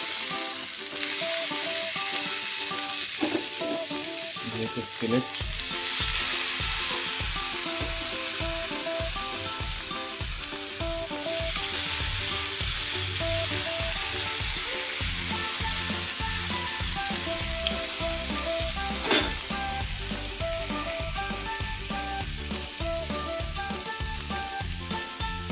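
Marinated tilapia fillets sizzling in hot mustard oil in a frying pan as they are laid in with steel tongs. Background music plays over it, with a beat coming in after about five seconds, and there is one sharp clack about two-thirds of the way through.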